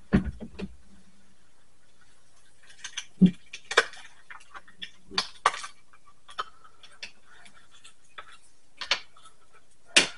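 Small objects being handled and set down on a tabletop: a low thump at the start, then a dozen or so irregular clicks and taps, the sharpest near the end.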